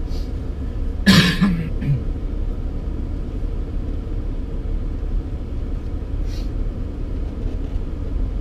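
Steady low rumble of a car heard from inside the cabin, engine and road noise, with one short loud vocal burst from a person about a second in.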